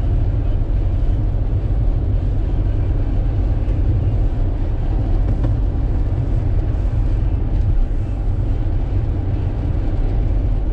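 Car driving at a steady speed: a constant low rumble of engine and tyre noise that does not change.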